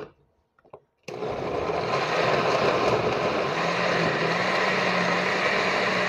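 Countertop blender switching on about a second in and running steadily, pureeing chiles, tomatillos, spices and water into a red chili sauce.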